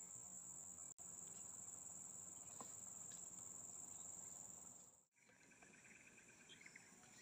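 Faint, steady, high-pitched drone of insects, which drops out briefly about a second in and cuts off abruptly about five seconds in. After the cut, a lower-pitched chirping of repeated short calls takes over.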